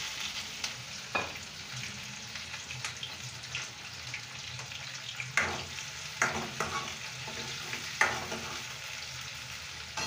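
Green chillies frying in hot oil in a kadhai, a steady sizzling hiss, with a few sharp scrapes of a spoon against the pan as they are stirred, the loudest near the end.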